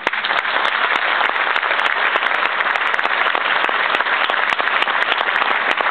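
Audience applauding: a dense, even clapping that breaks out suddenly and carries on at a steady level.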